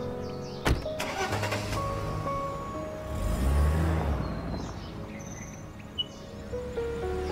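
Soft background music over a car door shutting with a sharp thud about a second in, then the sedan's engine rumbling as it pulls away. Birds chirp faintly.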